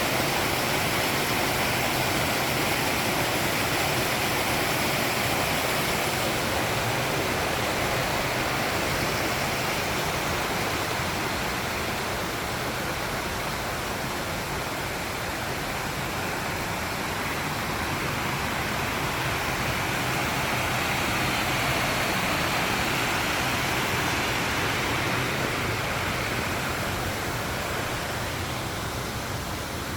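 Steady rushing of flowing water, an even wash of noise without breaks.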